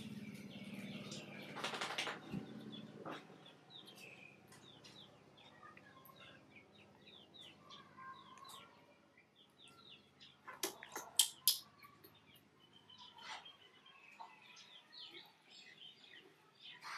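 Small birds chirping, many short high calls throughout. A low hum fades over the first few seconds, and a cluster of sharp clicks comes about eleven seconds in.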